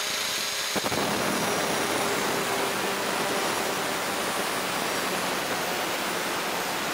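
Angle grinder with a cutting wheel cutting a V notch into the end of a stainless steel bicycle frame tube. The motor's steady whine turns to a harsher grinding noise as the wheel bites into the metal about a second in, and the cut runs on steadily.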